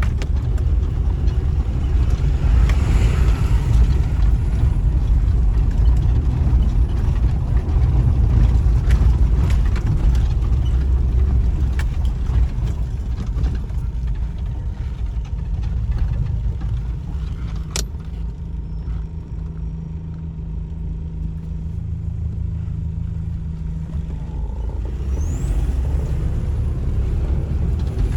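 A moving road vehicle's engine and road noise: a heavy low rumble that eases and drops to a steadier, quieter drone after the middle, then builds again near the end. There is a single sharp click just past the middle.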